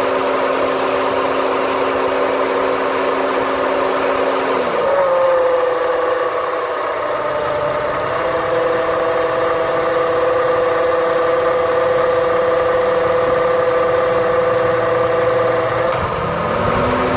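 2008 Honda Civic engine idling with the A/C compressor clutch cycling. About four and a half seconds in, a low tone slides down and drops away, and a different, higher steady tone carries on. Near the end the low tone rises back in. The owner reports a noise and a shake through the whole engine after the A/C clutch shuts off.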